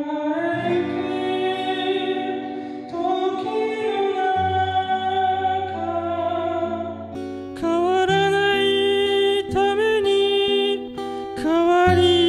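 A man singing a slow song while playing an acoustic guitar. For the first part it is heard through the Sony α6600 camera's microphone, roomy and reverberant with a blurred outline. About seven seconds in it switches to the direct line recording, which is clearer and drier.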